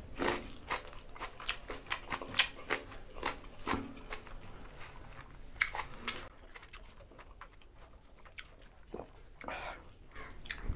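Close-up chewing and crunching of mutton biryani with raw red onion, eaten by hand. A dense run of wet crunches lasts about six seconds, then the chewing goes quieter, with a few more crunches near the end.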